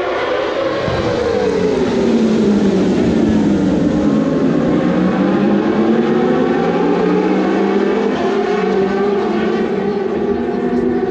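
Racing motorcycles at full speed, several engines heard together; their pitch drops over the first few seconds, then holds fairly steady.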